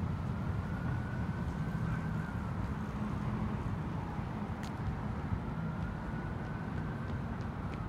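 Distant fire-vehicle siren wailing faintly, rising and falling slowly twice, over a steady low rumble.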